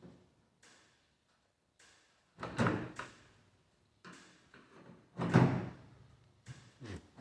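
Clothes dryer being handled and shoved: two heavy bumps with a short scraping tail, about two and a half and five seconds in, with lighter knocks in between.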